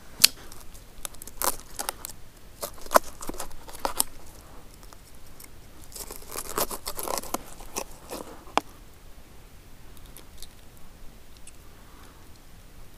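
A knife cutting a gizzard shad into bait chunks on a plastic cutting board: scattered sharp clicks and knocks of the blade and fish on the board, busiest in the first nine seconds and fainter after.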